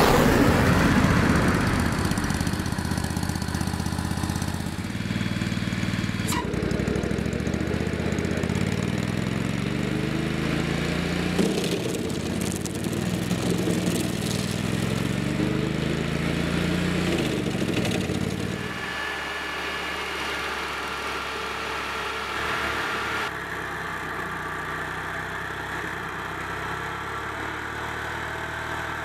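Stump grinder's engine running hard as its spinning cutter wheel grinds a tree stump, the engine note repeatedly dropping and recovering as the teeth bite. After about nineteen seconds it settles into a quieter, steadier run.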